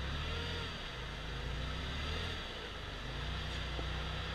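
Forklift engine running steadily, its low hum shifting in pitch and level about two and a half seconds in and again around three seconds, as the truck is worked.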